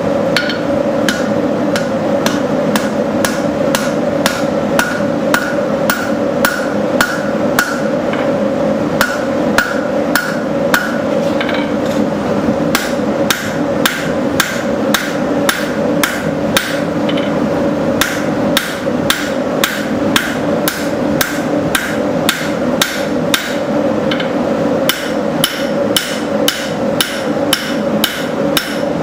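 Hammer blows on hot steel at the anvil while forging knife stock, falling in a steady rhythm of about two a second with a few short pauses. A steady hum runs underneath.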